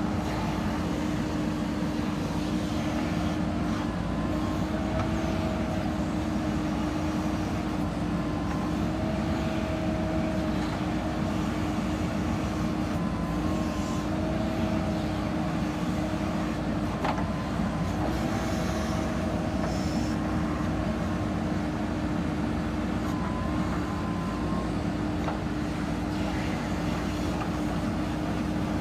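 JCB 3DX backhoe loader's diesel engine running steadily at a near-constant speed, its pitch shifting slightly now and then.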